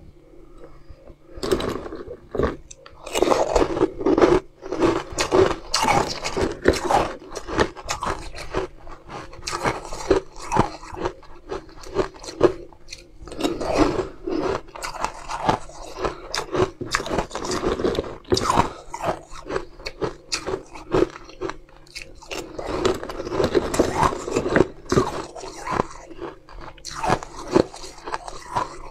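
Close-miked biting and crunching of frost-covered frozen ice balls, with chewing between bites: many irregular sharp crunches starting about a second and a half in, over a faint steady low hum.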